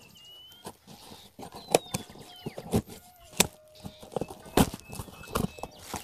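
Scissors cutting through packing tape on a cardboard box, with the box being handled: a string of sharp, irregular snaps and clicks.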